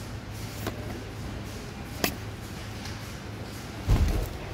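Handling of a boxed radio alarm clock on a shop shelf: two light clicks, then a dull thump near the end as the cardboard box is picked up and moved, over a steady low hum.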